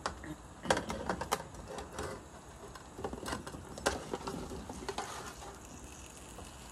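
Cut guavas and other fruit dropping from a metal tray into a metal cooking pot and being pushed in by hand. There are irregular soft knocks and clicks, bunched at the start and again midway, thinning out near the end.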